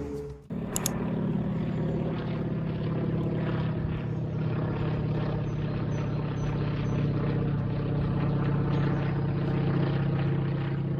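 Steady low engine and road drone of a moving car, heard from inside the cabin, starting just after a short break about half a second in.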